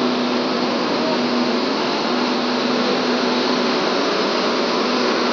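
Mercedes-Benz OH1626 intercity coach moving slowly past at close range, running with a steady, even drone.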